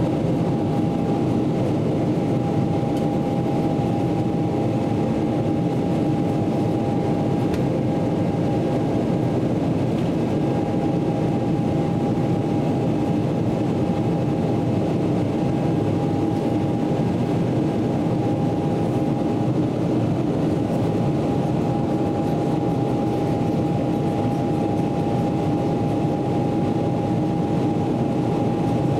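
Cabin noise inside a Boeing 777-300ER climbing out after takeoff: a steady, loud drone of its GE90 engines and airflow, with a steady high whine running through it.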